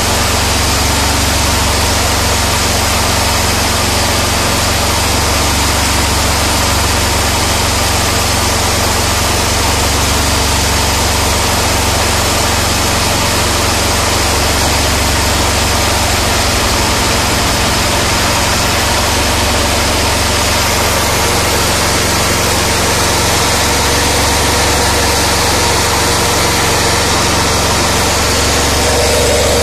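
Small petrol-LPG combo engine running steadily, driving a mini paddy huller, with the machine's dense whirring noise over the engine note.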